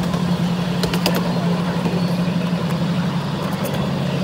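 Ride-on miniature train running along its track, heard from a passenger car: a steady low drone with a few sharp clicks about a second in.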